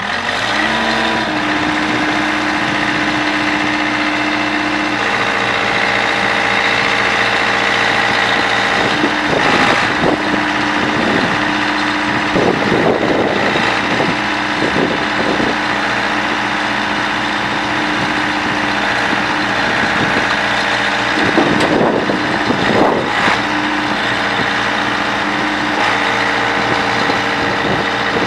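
Case 580D backhoe's diesel engine running, its pitch rising over the first second and then holding steady. Louder, rougher stretches come about a third of the way in and again about three quarters of the way through.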